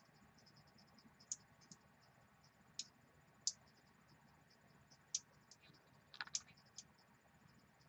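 Faint, scattered light clicks and taps, about eight of them with a small cluster near the end, from a plastic cable management loop and cables being handled and fitted.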